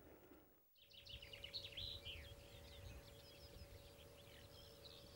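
Faint birdsong: a run of short, high chirps and trills, densest in the first two seconds after a brief dropout, over a faint steady hum.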